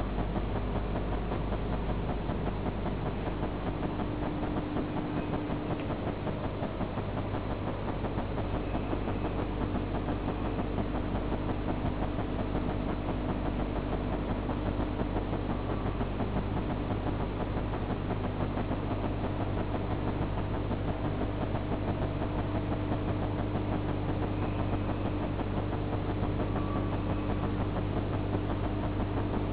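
Automatic chain link fence machine running steadily: a fast, continuous mechanical clatter over a steady motor hum.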